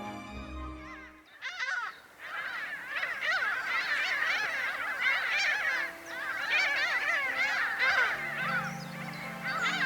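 A large flock of birds all calling at once: a dense, overlapping chorus of short rising-and-falling calls that starts about a second and a half in, with background music fading out at the start and low music coming back near the end.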